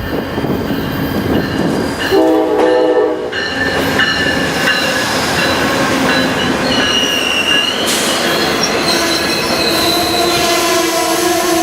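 Amtrak passenger train with a GE P42DC locomotive, giving off steady high metallic squeals that shift in pitch, with a short horn-like chord about two seconds in.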